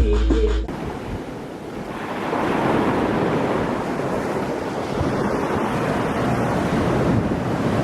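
Sea surf washing onto a beach: a steady rush of waves that swells about two seconds in.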